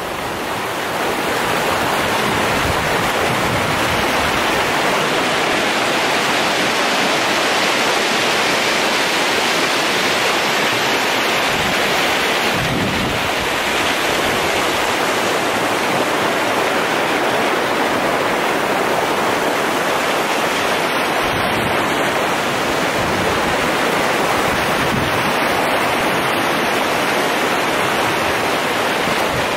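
Fast mountain stream rushing over rocks: a loud, steady rush of water.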